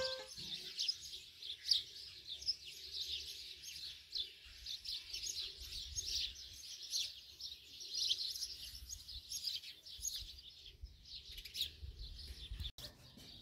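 Many small songbirds chirping busily, with short high chirps overlapping one another. The sound cuts out for an instant near the end.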